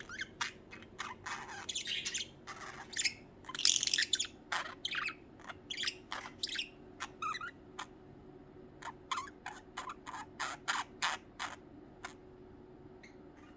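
Pet budgerigars chirping in quick, short, high calls, busy and overlapping for the first half, then thinning to separate single chirps that stop about a second before the end.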